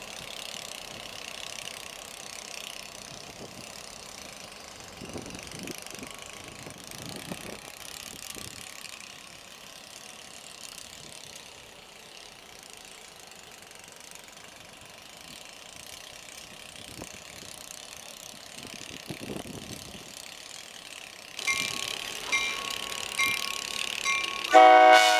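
Maryland Midland EMD GP38 diesel locomotives running low and steady at a grade crossing. About 21 seconds in, the crossing signal bell starts ringing in an even repeating ding. Near the end comes a short, loud blast of the locomotive's air horn.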